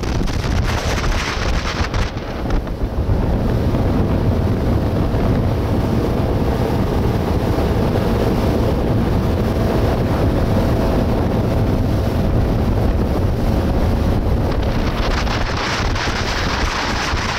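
Motorboat running at speed across open water: steady wind noise on the microphone over the rush of the engine and the water off the hull.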